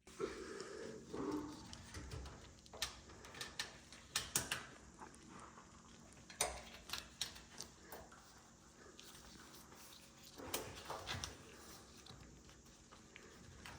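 Irregular clacks, clicks and knocks of hard appliance parts being handled, loudest in a cluster a little past the middle and again near the end.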